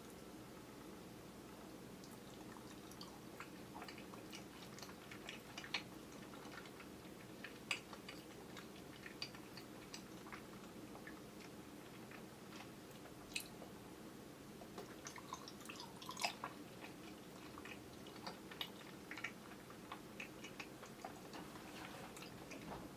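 Faint wet chewing of soft, chewy grape jelly sweets: irregular mouth smacks and small clicks over a steady low hum from the camera's built-in microphone.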